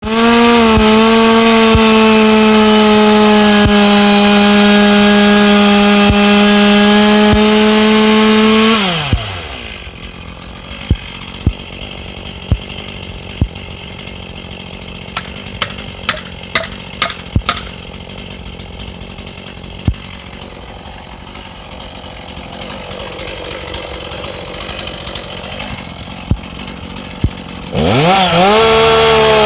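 Two-stroke chainsaw held at high revs for about nine seconds. It then drops back to a quiet idle, with scattered sharp clicks and knocks. Near the end it revs straight back up to full throttle.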